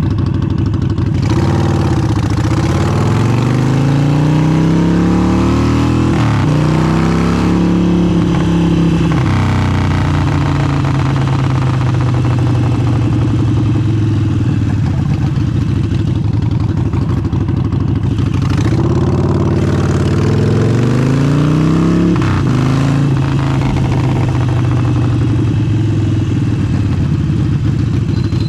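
Harley-Davidson Forty-Eight's air-cooled V-twin through an aftermarket exhaust, accelerating up through the gears with the pitch climbing and dropping back at each shift, then cruising steadily. About 18 seconds in it pulls up through the gears a second time.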